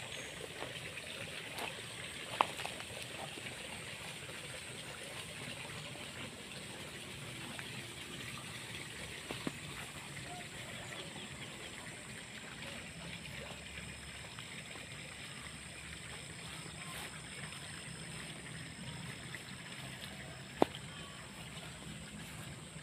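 Water trickling and running steadily through flooded rice paddies and their channels. A few sharp clicks cut in, the loudest about two seconds in and near the end.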